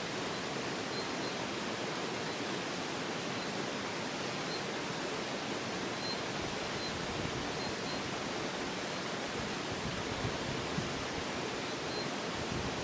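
Steady rushing of a river or stream, an even noise without breaks, with faint brief high chirps now and then.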